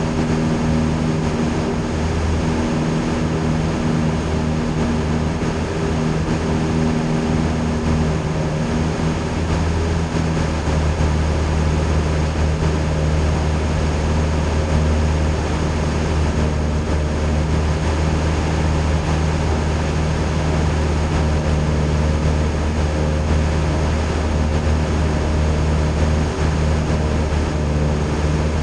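Cessna Skyhawk's piston engine and propeller running steadily in cruise, heard from inside the cockpit: a loud, even drone with a steady low hum.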